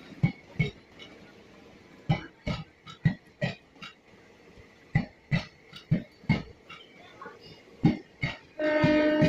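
Train wheels clacking over rail joints in pairs, about one pair a second. Near the end a train horn sounds for under a second.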